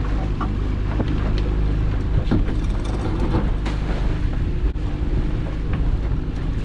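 Fishing boat's engine running steadily, with several sharp knocks and clatters on deck.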